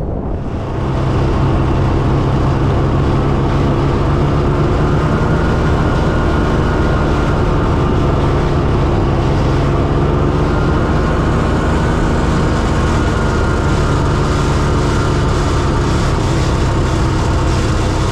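Engine of a small off-road vehicle running at a steady cruising speed as it travels across the ice. It picks up and gets louder about a second in.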